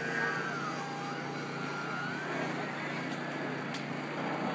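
Electric RC aerobatic plane's motor whining at a distance, its pitch sliding up and down over the first couple of seconds, over a steady background hiss, with a single sharp click near the end.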